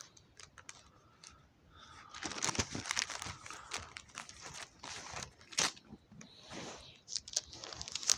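Paper rustling and crinkling, a quick run of crackly handling noises that starts about two seconds in, as of book pages being handled and turned.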